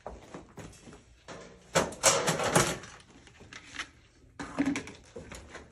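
A plastic bucket handled and set upside down on a stainless-steel instrument tray. The loudest part is a quick cluster of knocks and clatter about two seconds in, with smaller knocks and bumps before and after.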